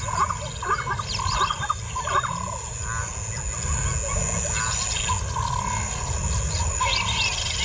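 Lions growling during a mating attempt, as the male mounts a lioness: a steady low rumble with short snarls over it. Small birds chirp now and then.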